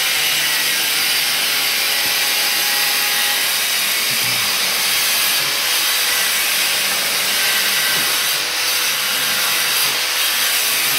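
Hand trowel scraping and stirring wet ceramic tile adhesive in a plastic mortar tub: a continuous gritty scraping.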